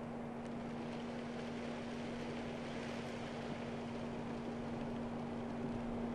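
BMW X5 xDrive50i's twin-turbo V8 running at a slow off-road crawl, a steady low hum under an even hiss.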